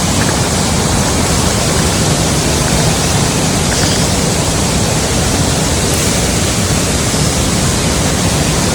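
Water rushing steadily down a small waterfall, a loud, even hiss with no breaks.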